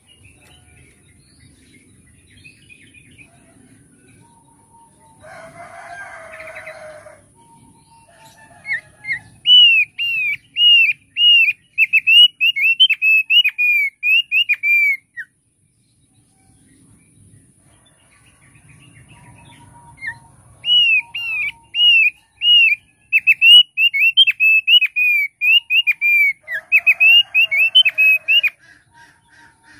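Thick-billed heleia (opior paruh tebal) singing two loud runs of quick, high, arched whistled notes, a few notes a second. The first run starts about ten seconds in and the second about twenty seconds in.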